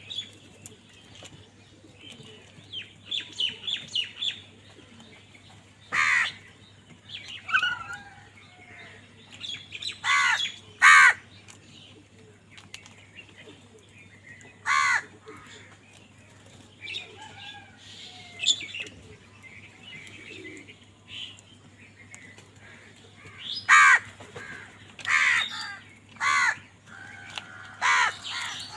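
Crows cawing, harsh calls coming at intervals, with a run of loud caws near the end and softer calls in between.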